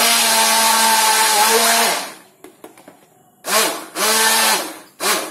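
Oster hand blender running in a steel bowl of curd: a steady motor hum for about two seconds, a pause, then a second run of about a second and a brief pulse near the end.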